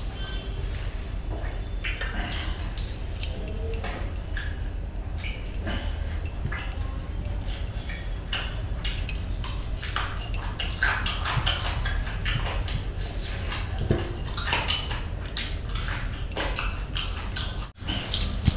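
A person eating by hand, close to the microphone: chewing and lip-smacking on grilled chicken and biryani rice, with many short wet clicks and smacks over a steady low hum.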